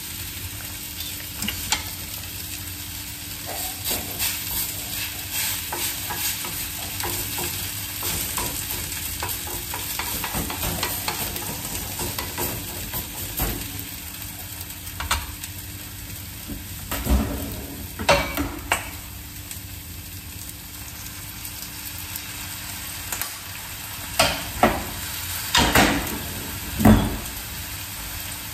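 Shredded potatoes sizzling steadily in hot olive oil in a frying pan, with a wooden spatula scraping and pressing them into shape. A few sharp knocks sound in the second half, loudest near the end.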